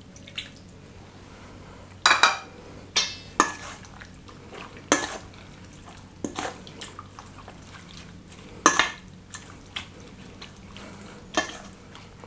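A metal spoon scraping and clinking against a stainless steel mixing bowl while it stirs wet chopped pork belly and paste, in irregular strokes a second or so apart, a few of them much louder.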